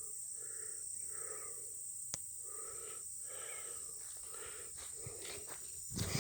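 Heavy, rhythmic breathing close to the microphone, in and out about once a second, over a steady high-pitched drone of insects. There is a single click about two seconds in and a thump near the end.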